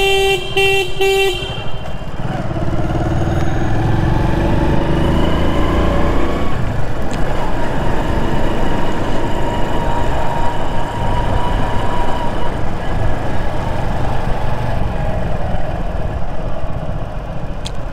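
A horn sounds a few short toots at the start. Then a motorcycle runs steadily along with a dense rush of road and wind noise.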